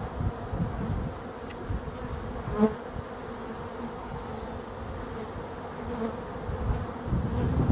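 Honey bees buzzing over the frames of an opened hive: a steady hum, with a few light clicks and knocks, the sharpest about two and a half seconds in.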